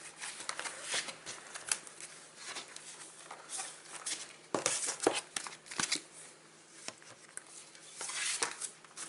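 Cardboard and plastic packaging of a trading-card starter pack and its binder being handled, with irregular rustling, crinkling and small taps and clicks.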